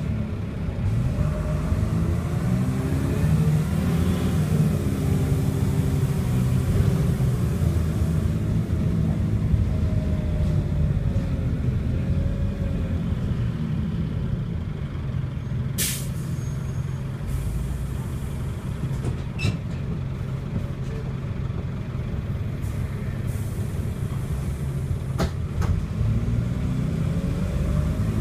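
Dennis Dart SLF bus's diesel engine and Allison automatic gearbox under way, heard from inside the saloon. The engine pitch climbs and falls over the first several seconds, runs steady through the middle, and climbs again near the end. A few brief sharp noises break in, the loudest a little past halfway.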